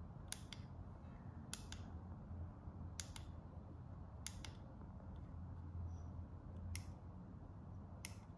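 Small tactile push-button switches on the clock kit's circuit board being pressed one after another: six sharp clicks, most of them double, about every second and a half. Each press steps the LED display to its next reading.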